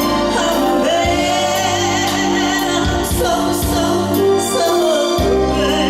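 Music with singing over sustained chords and a steady bass line, in a gospel style.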